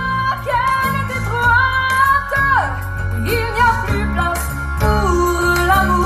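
A recorded song played back over a pro-audio rig: a woman sings held, wavering notes over deep, sustained bass. The playback comes through a TPA Shark TP450 single-10-inch passive line array driven by a P181SP active 18-inch subwoofer, under test in a sound check.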